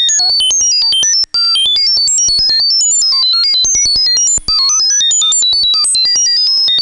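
Synthesized sci-fi sound effect: a rapid string of short electronic beeps, about ten a second, each at a different high pitch. It breaks off twice for a moment.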